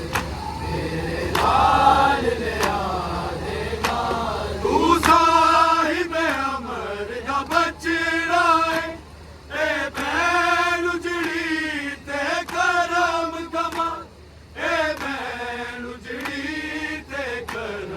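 Voices chanting a noha, a Shia mourning lament, in long drawn-out notes that bend up and down in pitch, with short breaks between phrases.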